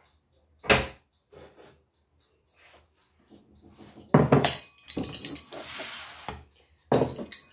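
Metal pizza tray knocking and clattering on a kitchen countertop as it is pulled and turned, with a scraping slide in the middle; a sharp knock about a second in and another near the end.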